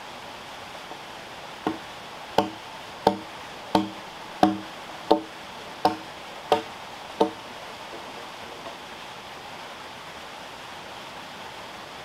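A hand tool striking a wooden log: nine evenly spaced, ringing knocks at about three every two seconds, which stop about seven seconds in. The strikes are consistent with cutting or chiselling joints into a timber pillar.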